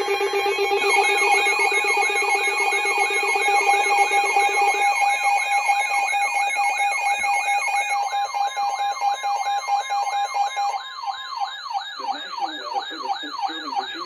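Several NOAA weather alert radios sounding their alarms at once for a special marine warning. Rapid warbling siren-like tones are layered over steady beeping tones. A low buzzy tone drops out about a third of the way in, the other radios stop one after another, and the last alarm cuts off at the very end.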